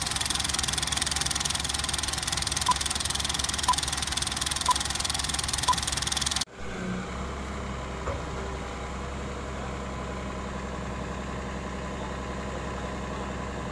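Film-projector clatter with four countdown beeps a second apart, then a sudden cut to the diesel engine of a Volvo EC330BLC crawler excavator idling steadily.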